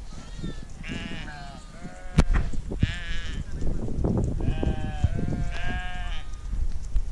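Flock of sheep bleating: five or six quavering bleats from different animals, some overlapping. There is a sharp knock about two seconds in.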